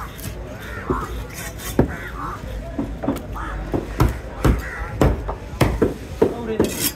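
Knife chopping through fish on a cutting board: a string of sharp, irregular chops, several in quick succession in the second half.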